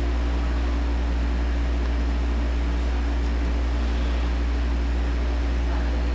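Steady low hum with a stack of evenly spaced overtones and a constant hiss over it, unchanging throughout.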